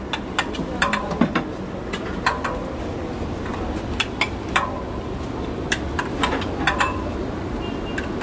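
Metal serving spoon clinking and scraping against a plate and the rim of a large metal biryani pot as rice is dished out, about a dozen irregular clinks with a short ring.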